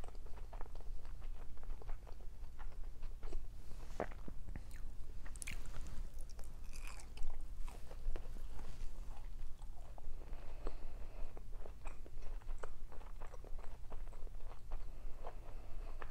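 A person chewing and biting food close to the microphone: a string of wet mouth clicks and smacks, with one sharper, louder bite about seven seconds in.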